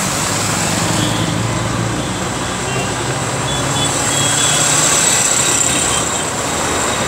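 Steady highway traffic noise: a constant rush of passing vehicles with a low engine hum underneath.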